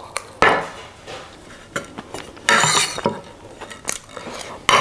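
Metal spoon clinking and scraping on a ceramic plate while gathering the last cheesecake crumbs: several short clinks and a louder scrape about halfway through.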